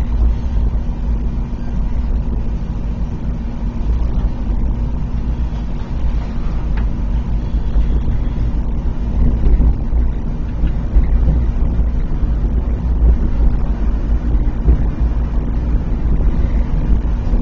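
Steady low rumble of an ICE high-speed train running slowly, heard inside the passenger coach, with a faint steady hum underneath.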